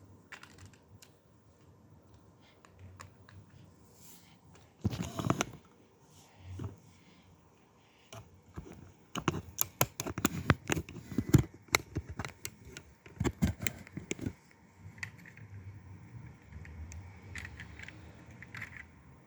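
Plastic Lego pieces being handled: scattered clicks, a brief rattle about five seconds in, then a busy stretch of clicking and clattering in the middle before it settles to a few light taps.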